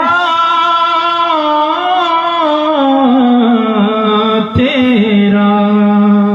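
A man singing a naat in a long, drawn-out melismatic line, the voice gliding slowly downward and ending on a long held note on 'tera'.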